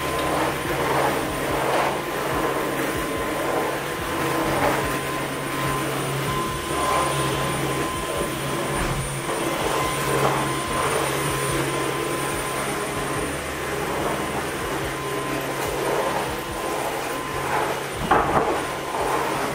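Cordless stick vacuum cleaner running steadily with a constant motor whine, with a few knocks near the end.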